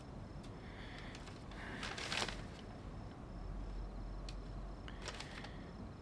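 Faint rustling with a few soft clicks and taps over a low room hum.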